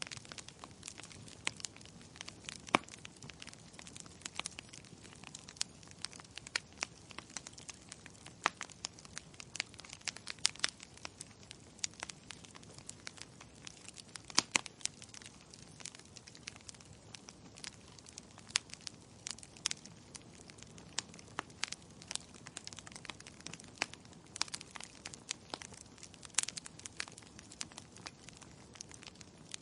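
Logs burning in a fireplace, crackling with irregular sharp snaps and pops over a steady low hiss.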